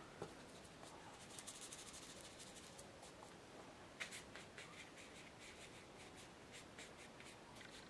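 Faint scratching and rubbing of a watercolour brush picking up paint in a palette tray and stroking it onto the paper, with scattered small taps, one a little louder about four seconds in.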